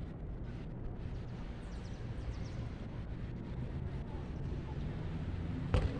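Outdoor ambience dominated by a steady low rumble, typical of wind buffeting a ground-level microphone, with a single sharp thump near the end.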